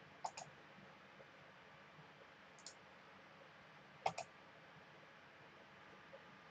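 Three clicks of a computer mouse button over faint hiss, each a quick press-and-release double tick: one just after the start, a fainter one a little before three seconds, and the loudest about four seconds in.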